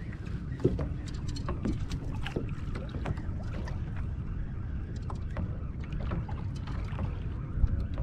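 Steady low wind rumble on the microphone and water slapping against a plastic kayak hull on a choppy sea, with scattered small clicks and knocks.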